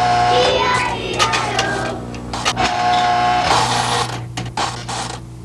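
Toy train running: a steady mechanical whirr with a low hum and irregular clicks.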